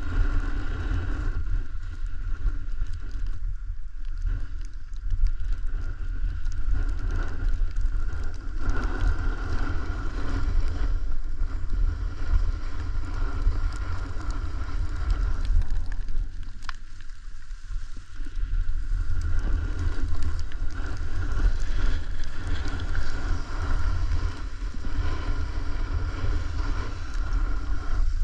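Snowboard sliding and carving down a snowy run: the board's hiss and scrape on the snow over a heavy rumble of wind buffeting the microphone, swelling and dipping every few seconds.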